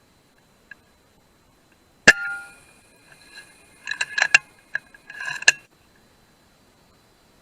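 A sharp crack about two seconds in with a metallic ring after it, then a quick run of metallic clinks and rattles a couple of seconds later: a .22 FX Maverick Compact air rifle shot in a barn, with metal ringing from the hit.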